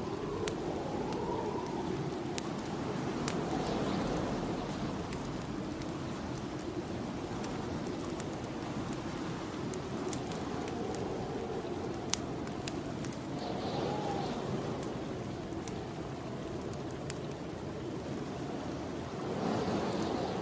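Snowstorm wind gusting and moaning in slow swells, with a wood fire crackling and popping throughout, including one sharper pop about twelve seconds in.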